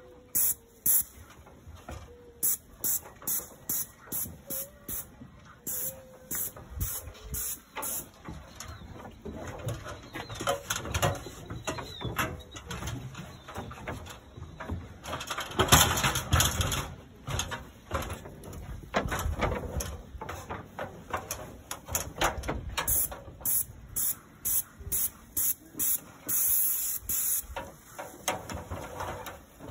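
Graco P395 airless paint sprayer gun hissing at the tip in many short bursts as the trigger is pulled and released on each stroke over the siding, with a louder stretch of noise near the middle.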